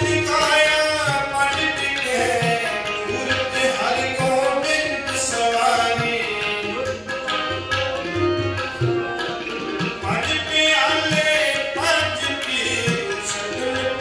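Sikh gurbani kirtan played live by ragis: hymns sung over harmonium, with a steady tabla accompaniment.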